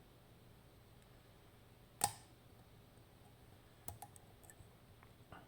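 Quiet clicks of a hook pick lifting the pins of a DOM RN pin-tumbler lock while pin 5 is worked: one sharp click about two seconds in, then a few smaller clicks around four seconds and near the end.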